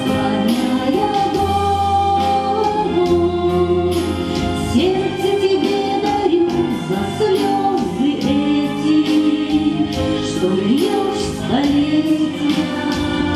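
A woman singing a song into a handheld microphone, amplified through the hall's sound system, over instrumental accompaniment with a steady beat.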